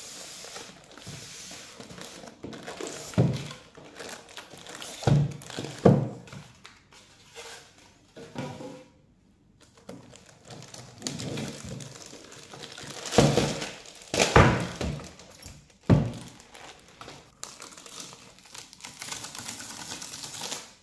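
Unpacking noise from an Akai MPK Mini Plus MIDI keyboard: its clear plastic wrapping rustles and crinkles, and there are several dull thunks and knocks as the keyboard is handled and set on a wooden table.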